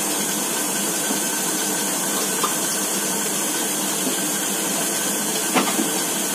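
Steady, loud rushing noise of kitchen machinery or a fan running, with a few faint clicks.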